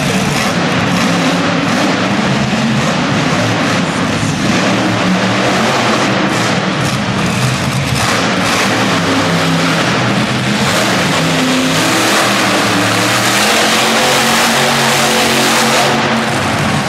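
Monster truck's supercharged V8 engine running loud and revving, the pitch climbing and falling repeatedly in the second half.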